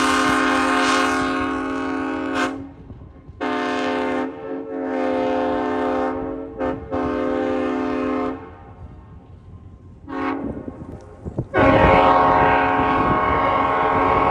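Diesel locomotive air horn sounding a chord in a series of blasts: a long blast, three more with short breaks, a brief toot, then near the end the loudest blast over the low rumble of the train.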